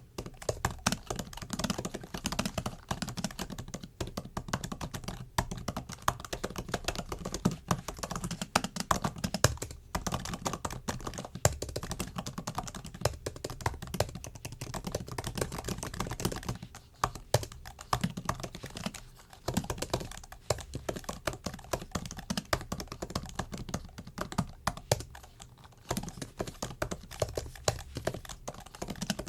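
Typing on a MacBook keyboard: a fast, continuous run of key clicks, broken by a few brief pauses.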